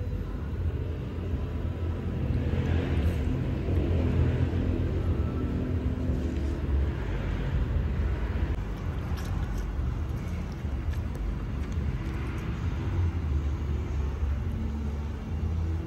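Steady low rumble of road traffic passing by, with a few light clinks of a spoon and chopsticks against a ceramic bowl.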